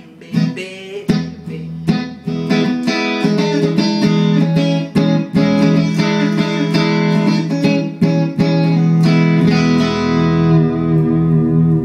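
Telecaster-style electric guitar being played: sharp picked strokes at first, then a run of ringing notes and chords, settling near the end into one long sustained chord.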